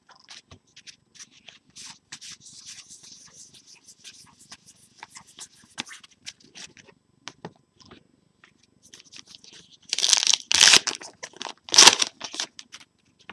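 Light rustling and clicks of trading cards being handled, then a baseball card pack's wrapper being torn open with two loud rips near the end.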